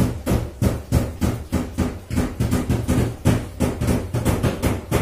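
Steady, rapid hammer taps, about four a second, on a part of an electric stand fan's motor being worked during a bushing and shaft replacement.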